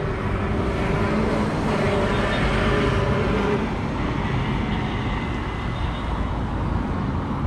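Street traffic on the road beside the promenade: a steady wash of passing vehicles, with one growing louder and then fading between about one and four seconds in.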